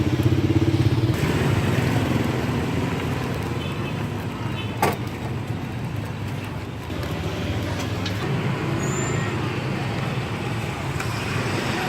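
Street traffic running steadily, with an engine's pulsing low hum close by in the first second that then fades into the general noise. One sharp click or clink about five seconds in.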